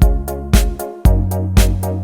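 Background music with a steady electronic beat, about two kick-drum hits a second over held bass notes that shift about a second in.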